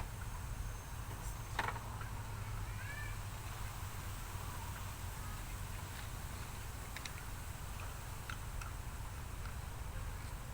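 A brief animal call, a short curved cry, about three seconds in, over a steady low hum, with a sharp click about a second and a half in and a few light ticks later.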